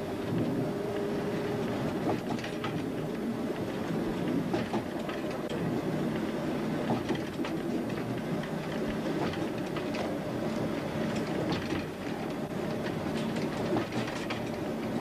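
Heritage train running along the line, heard from on board: a steady rumble with the wheels clicking over rail joints now and then.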